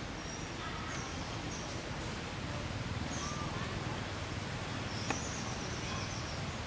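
Outdoor forest background: a steady hiss with short, high bird chirps scattered through it, and a single sharp click a little past five seconds in.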